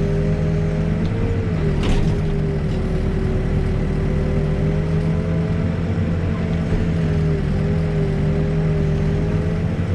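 Backhoe diesel engine running steadily at a constant speed, with one brief knock about two seconds in.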